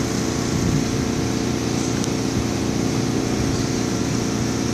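Steady mechanical hum of a running motor, like an engine or generator, holding one even pitch.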